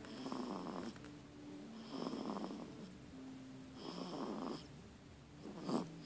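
Soft snoring from a small sleeper: three noisy breaths about two seconds apart, with a faint steady hum between them and a short, louder sound near the end.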